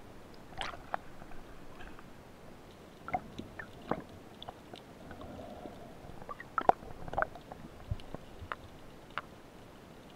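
Scattered sharp clicks and knocks heard underwater, from a spearfisher's speargun and gear being handled while diving, with a few louder knocks near the middle.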